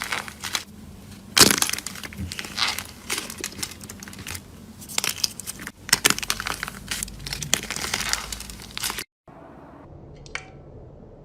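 Crunchy slime being pressed and worked, giving dense crackling and popping that cuts off abruptly about nine seconds in; a few faint clicks follow.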